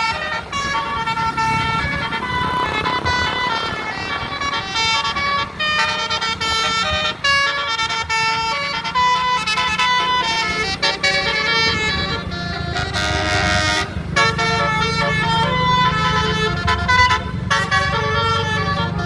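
A 12-note basuri multi-tone bus air horn playing a tune, one held note after another with no break, over a low steady hum.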